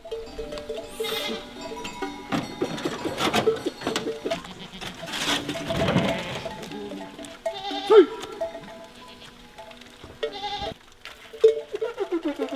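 Goats bleating several times, in quavering calls, over background music with steady held notes.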